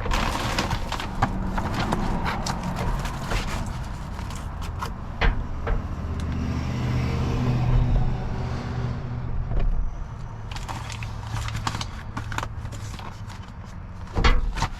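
Irregular knocks, clatters and rustling as food packages are handled and moved around inside a dumpster, over a steady low hum.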